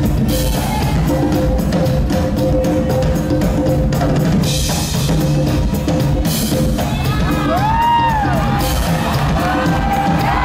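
Live band playing loudly through a PA, heard from the audience: a steady drum-kit beat with bass and a held keyboard tone. Rising-and-falling sliding tones come in from about seven seconds in.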